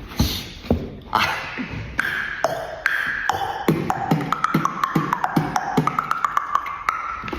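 Beatboxing: sharp mouth clicks and kicks over a held tone that steps up and down in pitch. The clicks come faster in the second half.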